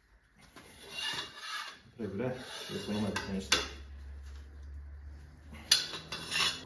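Steel extension pipe and torque wrench scraping and clinking on a bolt while it is tightened by hand, with a single sharp click about three and a half seconds in and a run of metal clinks near the end as the wrench is lifted off.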